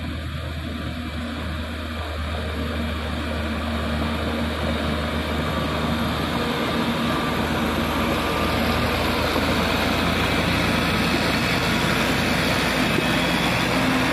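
Diesel engines of a Caterpillar motor grader and the light truck it is towing uphill, running steadily under load and growing louder as they approach.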